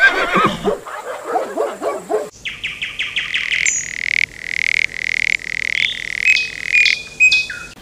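High-pitched animal chirping: a quick run of chirps about two seconds in, then a shrill trill that holds one steady pitch, broken by regular pulses.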